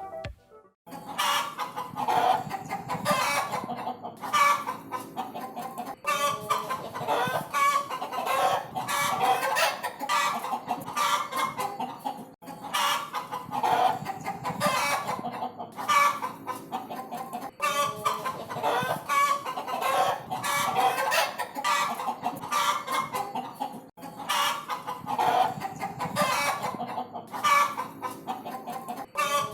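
Chickens clucking continuously, the short calls overlapping, with brief breaks about every six seconds.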